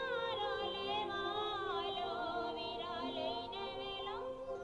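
Background music: a melody that wavers and glides in pitch over held lower notes.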